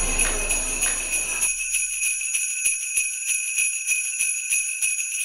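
Sleigh bells shaking in a steady rhythm, about three shakes a second. The music under them drops out about a second and a half in, leaving the bells alone.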